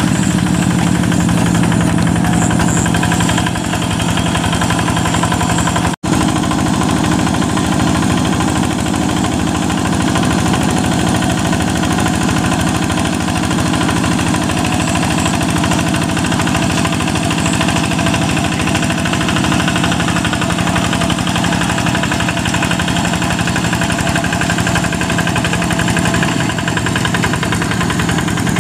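Yanmar single-cylinder diesel engine of a two-wheel hand tractor running steadily under load while it plows soft paddy mud. The sound cuts out for an instant about six seconds in.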